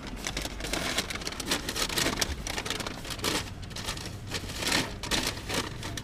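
Paper fast-food bag rustling and crinkling as it is handled, an irregular crackle throughout.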